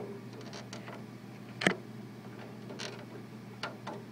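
A few sharp clicks and knocks of small hard parts being handled, the loudest a little under two seconds in, as the wire is worked into a 12-volt cigarette lighter adapter.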